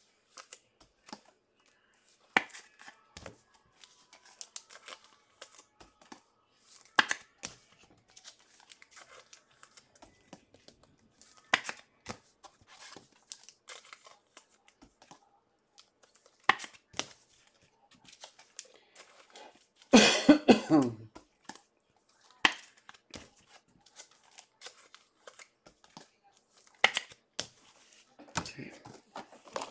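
Foil trading-card pack wrappers and cards being handled: scattered crinkles, rips and clicks at irregular intervals. There is one loud cough about twenty seconds in.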